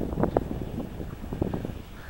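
Wind buffeting the microphone: a gusty low rumble with irregular sharp puffs, two close together near the start and another about a second and a half in.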